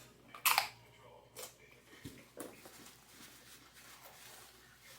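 A sharp crunch of a bite into tortilla-chip nachos about half a second in, followed by a few quieter chewing sounds.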